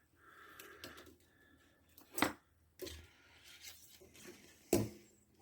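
Small tools and parts handled on a workbench: faint rustling with two sharp clicks, about two seconds in and near the end.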